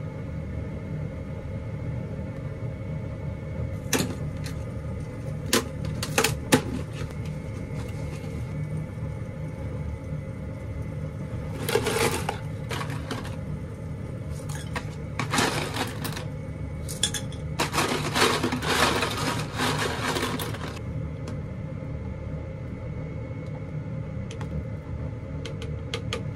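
Dry casarecce pasta rattling in its cardboard box, a few sharp clicks and then three rattling pours as it is tipped into a pot of hot water, over a steady low hum.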